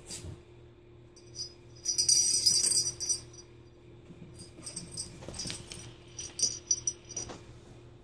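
A small bell jingling in irregular bursts, loudest about two seconds in and again later on, over a faint steady hum.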